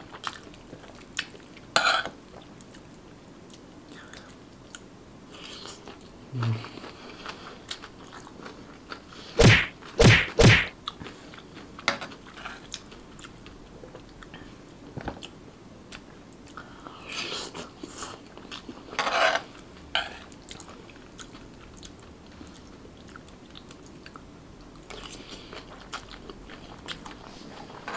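Close-miked chewing and eating of char kway teow, stir-fried flat rice noodles: wet mouth sounds and small clicks, with a cluster of three loud, sharp sounds about ten seconds in and a few more louder bursts a little later.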